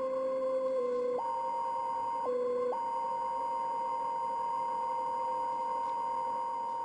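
Eerie electronic music score of sustained pure tones. A low held note steps up to a higher one a little after a second in, drops back briefly, then rises again and holds over a steady higher drone.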